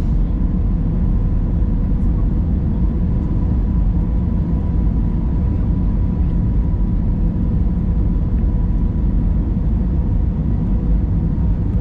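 Steady low rumble of an airliner in flight, engines and rushing air, with a faint steady hum over it.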